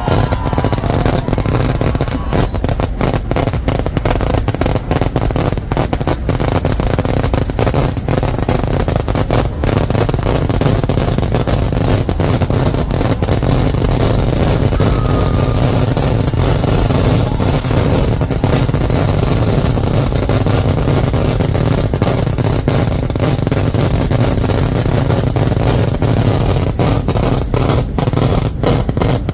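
A dense, unbroken barrage of fireworks explosions, the bangs so rapid that they merge into a steady low din with crackling throughout.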